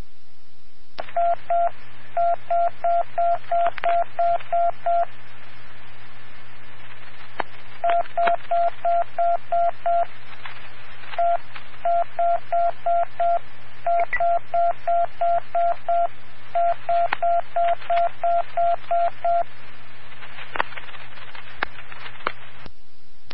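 Fire-alarm box tones over a fire dispatch radio channel: short beeps at one pitch, struck in counted groups that spell out a box number, with pauses between the groups. The sequence runs through twice, the second time plainly as one, five, seven and nine beeps (box 1579), over steady radio hiss and hum with a few squelch clicks.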